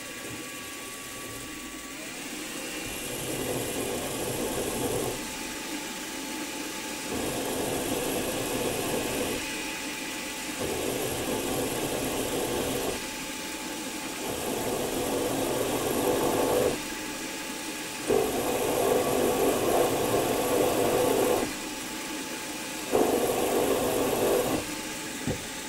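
Milling machine spindle running with a center drill cutting into a metal plate. The drill is fed in and backed off in about six pecks, each a rough cutting noise of two to three seconds over the steady hum of the machine.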